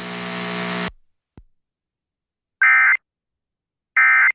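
A steady hum on the weather radio audio stops about a second in and is followed by a click. Then come two short, identical squawks of a digital data burst, about a second and a half apart: the Emergency Alert System SAME end-of-message (NNNN) code that closes the alert.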